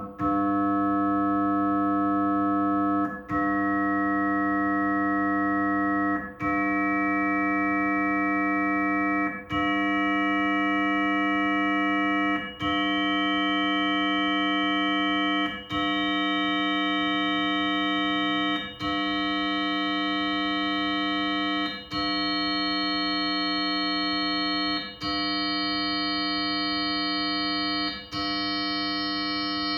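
A synthesized chord of pure sine tones at prime multiples of 100 Hz (200, 300, 500, 700, 1100 Hz and up), a harsh, dissonant sound because the tones have no harmonic relationship. It plays in steps of about three seconds, each cut by a short gap, and each step adds one higher prime tone.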